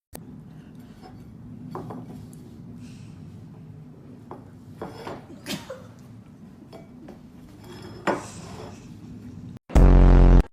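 Light clinking and knocking of dishes and cutlery over a steady low hum, cut off near the end by a loud buzzing tone lasting under a second.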